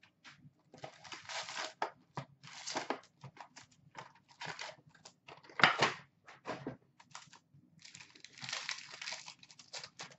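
A cardboard hockey card box being opened and its wrapped card packs pulled out and stacked: bursts of crinkling and rustling, with one sharper, louder clatter about five and a half seconds in.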